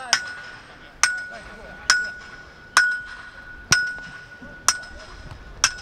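A hard object struck seven times at a steady pace of about one strike a second, each hit ringing on with the same clear metallic tone.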